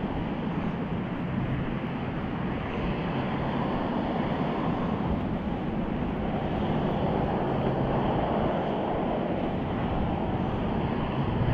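Wind blowing across a body-worn camera's microphone: a steady rushing noise.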